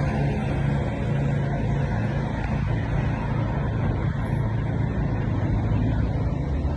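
Steady low rumble of road traffic, with motor-vehicle engines running.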